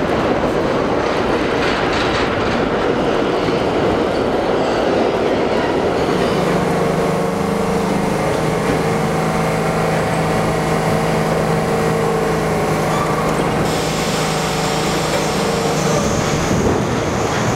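New York City Subway train noise in a station: a dense rumble and clatter of a train running on the rails. From about six seconds in, a steady low hum comes from a Budd R32 train standing at the platform, and it fades out near the end.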